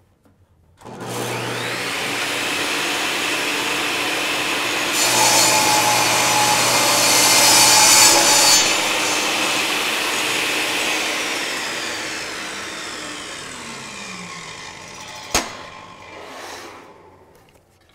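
Portable table saw starts about a second in, its motor whining up to speed, then cuts across a board held to the miter gauge for about three seconds. It is switched off and winds down over several seconds with a falling whine, and a single sharp knock comes near the end.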